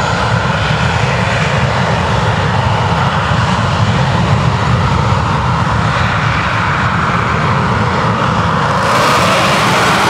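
English Electric Lightning's twin Rolls-Royce Avon jet engines running loud and steady as the jet taxis. About nine seconds in, a hiss comes in above the rumble and it grows a little louder.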